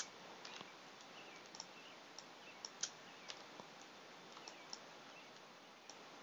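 Faint, irregular clicks of a computer mouse and keyboard, about a dozen in all, over a low steady hiss.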